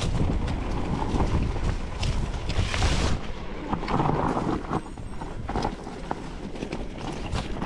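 Mountain bike riding over a rough trail: wind buffeting the microphone, with irregular knocks and rattles from the bike and tyres on stones. The wind rumble eases a little past the halfway point.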